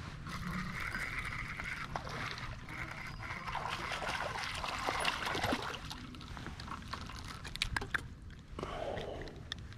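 Water splashing as a hooked fish fights at the surface close to the kayak, strongest about five seconds in. A string of sharp clicks follows near the end.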